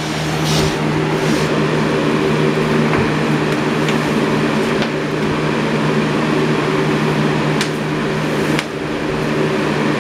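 Galaxy box fan running on its high speed setting: a steady rush of moving air over a constant low motor hum.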